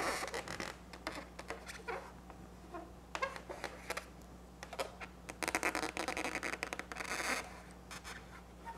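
Black Sharpie marker drawn across an inflated white latex balloon, its tip squeaking and scratching in short irregular strokes, with one longer stroke of about two seconds a little past the middle.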